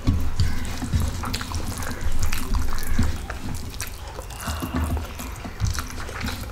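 Wet chewing and mouth sounds of someone eating rice and curry by hand, with squishing as fingers mix the rice on a steel plate: many small, irregular wet clicks.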